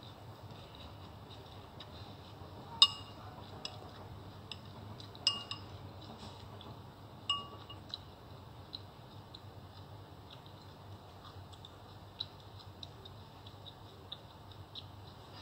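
Metal cutlery clinking against a dish while eating noodles: three sharp, ringing clinks about two seconds apart in the first half, with many quieter small clicks of cutlery throughout.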